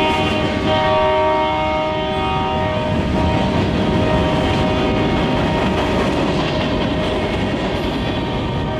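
Diesel locomotive air horn sounding a long chord over the rumble of the moving train. The horn is strongest in the first few seconds, then carries on more faintly while the train noise swells.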